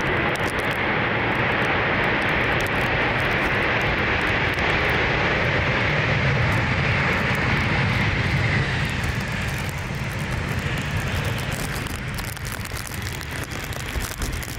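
Jet engine noise from a landing Boeing 747's four engines, loud and steady, then fading over the last few seconds as the aircraft moves away.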